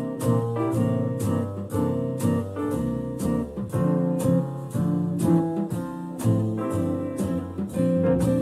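Instrumental music with a steady beat, played through a Sony SRS-HG10 Bluetooth speaker with its EXTRA BASS mode switched on.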